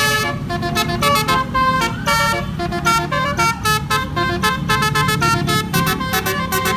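Basuri telolet horn, a multi-note musical vehicle horn, tooting a quick melody of short notes that step up and down in pitch, over a low engine rumble.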